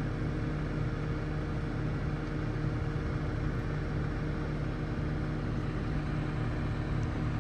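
An engine running steadily at an even speed, a low constant hum with no change in pitch.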